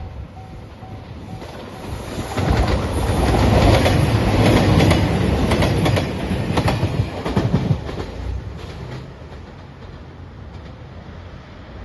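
A train passing close over a level crossing: a rising rush of wheels and motors with wheels clacking over rail joints, loudest in the middle and then fading. A level-crossing warning bell dings faintly at the start.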